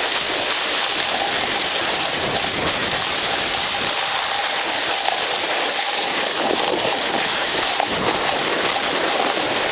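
Steady rushing hiss of a fast slide down a packed-snow slope.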